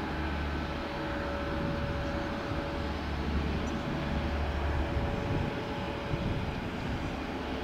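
Boeing 787-9 Dreamliner's Rolls-Royce Trent 1000 turbofans running at taxi power: a steady jet whine over a low rumble.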